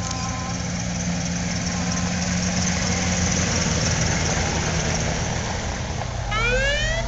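Heavy vehicle engines running low and steady as a slow convoy of a Humvee, a police car and a fire truck rolls past. About six seconds in, an emergency siren starts winding up in a rising wail.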